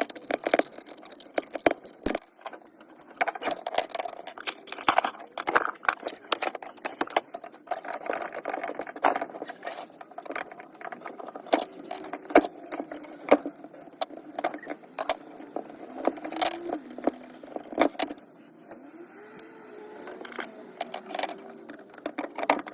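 Irregular clicks, taps and clinks of hand work with small hard parts and tools, with a few short squeaks or whines that rise and fall in pitch past the middle.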